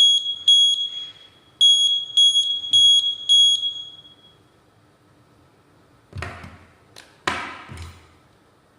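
Ultra Max carbon monoxide detector sounding its test alarm after its test button is pressed, a sign that it has warmed up and is in normal working mode. It gives shrill high beeps, about two a second, in groups of four with a short pause between. The last beeps of one group are followed by a full group of four that stops about four seconds in. A few short handling knocks follow near the end.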